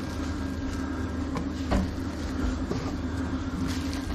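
Steady low mechanical hum, with a few faint knocks; the loudest comes just under two seconds in.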